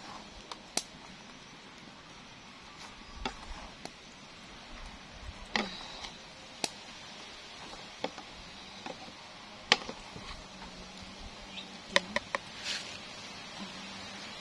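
Cooking utensil clicking and knocking against a pan while stirring noodles: about a dozen irregular sharp taps, several in quick succession near the end, over a faint steady hiss.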